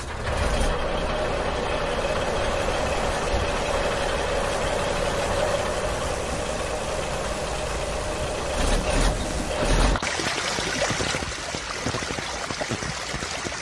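Steady engine running sound, like a truck engine idling, with a constant mid-pitched hum; about ten seconds in it turns rougher and more uneven.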